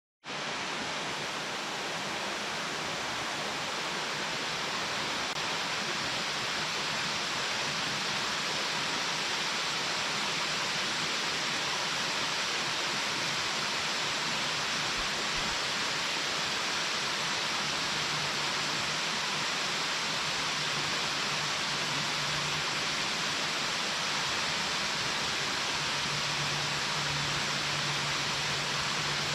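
Waterfall, a steady, even rush of falling water that starts abruptly at the very beginning.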